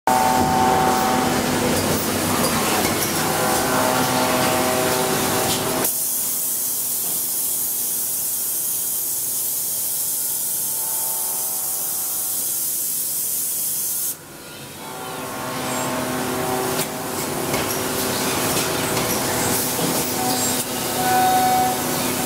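A robot-tended CNC machining cell running, with a steady mechanical hum and several steady whining tones. About six seconds in, a loud steady hiss of spraying air or fluid starts and cuts off suddenly some eight seconds later. After that the machine running and whining tones build back up.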